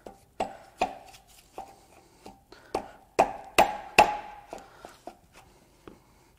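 Hand tools clinking and tapping on metal engine parts while the diesel V8's high-pressure fuel pump is worked loose: about a dozen irregular sharp knocks, some with a short metallic ring. The three loudest come close together a little past the middle.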